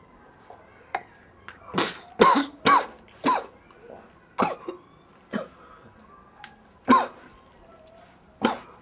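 A person coughing: a string of about eight short, harsh coughs spread over several seconds, some with a falling catch of the voice.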